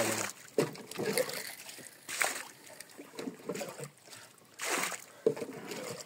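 Water splashing and sloshing in a small rowboat that is leaking, heard as short, irregular splashes a second or so apart, as the water is bailed out over the side.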